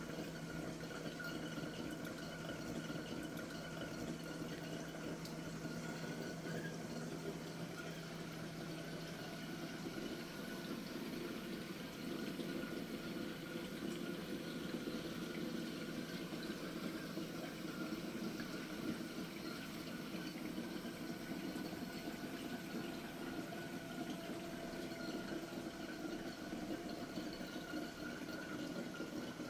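Steady sound of running water from a saltwater reef aquarium's water circulation, fairly faint.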